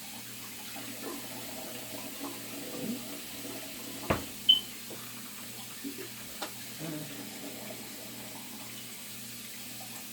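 Kitchen sink faucet running steadily while fruit is rinsed under it, with a few knocks and clatters against the sink, the loudest about four and a half seconds in.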